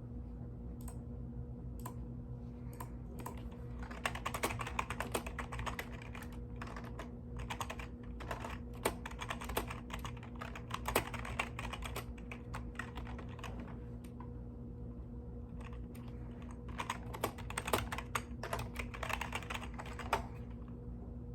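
Mechanical keyboard being typed on in three bursts of rapid keystrokes with short pauses between, over a steady low hum.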